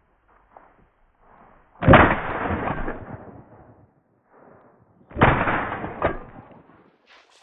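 Two loud shotgun shots about three seconds apart, each with a long fading echo, the second followed about a second later by another sharp report: shots fired at a hare running away across an open field.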